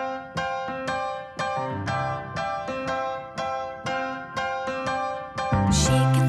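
Background music: a keyboard playing a gentle repeated pattern of decaying notes, about two a second. About five and a half seconds in, a fuller, louder arrangement with a sustained bass comes in.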